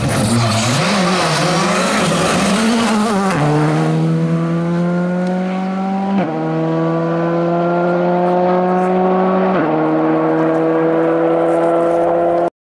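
Skoda rally car accelerating out of a corner, its engine note wavering for the first few seconds, then rising steadily through the gears with three upshifts about three seconds apart. The sound cuts off abruptly near the end.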